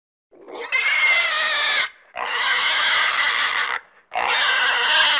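Horse neighing: three shrill, wavering calls of a second and a half to two seconds each, one after another with short gaps.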